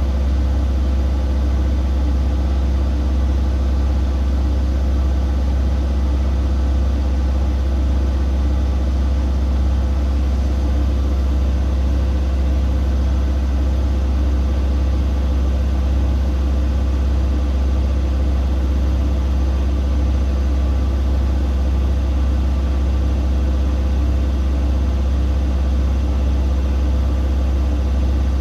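Siemens Siwamat IQ 716 front-loading washing machine running with a steady, loud low hum and no pauses.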